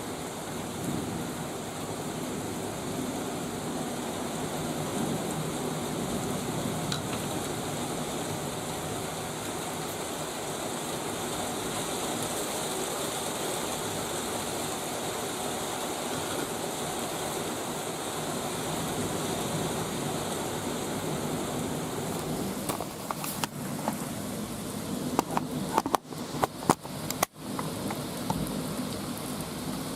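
Steady heavy rain from a thunderstorm, a continuous even hiss, with a cluster of sharp clicks near the end.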